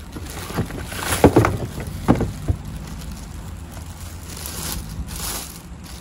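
Plastic wrapping crinkling and vacuum parts knocking as they are handled in a cardboard box, with a few sharp crinkles and knocks in the first two and a half seconds, over a steady low background rumble.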